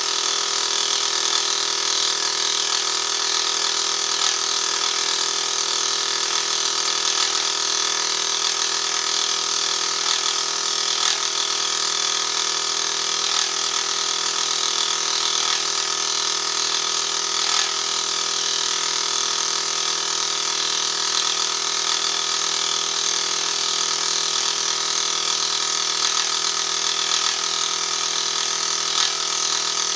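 Benchtop milling machine running steadily with a dovetail cutter taking a cut along a cast iron cross slide as the table is fed slowly: a constant motor whine made of several steady tones, over a high hiss.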